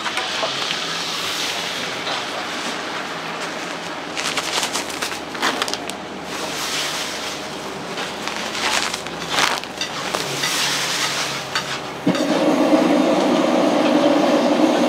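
Cooking clatter with scattered clinks and knocks over a low background noise. About twelve seconds in, a louder, steady rushing noise starts abruptly.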